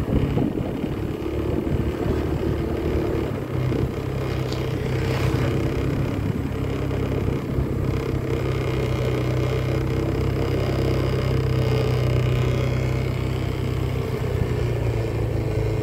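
A vehicle engine running steadily at an even, low speed, with road noise. Its note settles into a steadier, stronger hum about three and a half seconds in.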